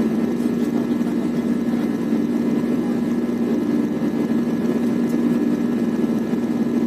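Steady drone of a jet airliner's engines and rushing air heard inside the passenger cabin in flight, with a strong constant low hum.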